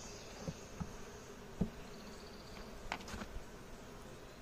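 A swarm of honeybees buzzing steadily around an open nuc and hive box, with a few light knocks in the first couple of seconds.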